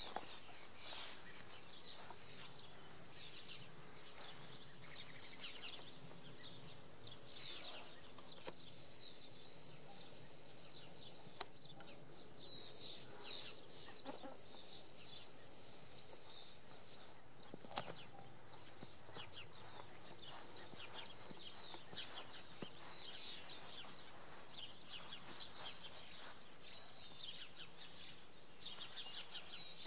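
Insect chirping steadily, a single high note repeated evenly about three times a second, with a few scattered short chirps.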